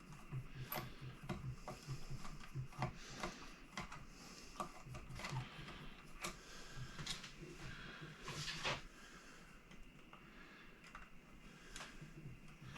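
Scattered small clicks, taps and light rattles of hand work on an electric guitar during a pickup removal, as small metal parts and tools are handled.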